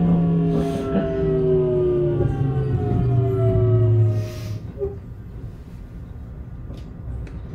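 Keio 8000 series train's Hitachi GTO-VVVF inverter and traction motors whining: a stack of tones falling steadily in pitch as the train slows. The whine cuts out about four seconds in, leaving quieter running noise.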